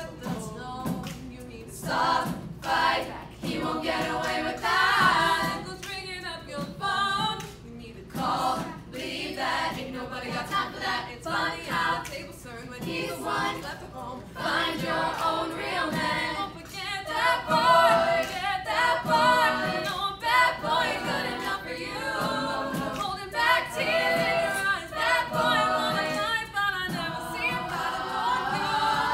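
Girls' a cappella group singing in close harmony with no instruments, a vocal percussionist beatboxing a beat under the voices in the opening seconds.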